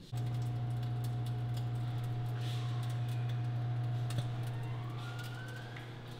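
A steady electrical or motor hum with several fainter higher tones over it. It comes on suddenly, eases off a little toward the end, and a faint rising whine shows near the end.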